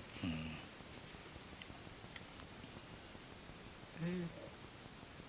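Steady high-pitched insect trill, one unbroken band of sound. A short murmur of a voice comes just after the start and again about four seconds in.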